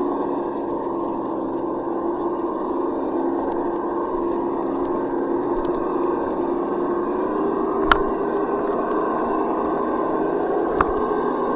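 Traxxas TRX6 6x6 RC crawler's electric motor and geared drivetrain whining steadily as it crawls over rocks and roots, the pitch wavering slightly with throttle and load. Two sharp clicks in the second half, about three seconds apart.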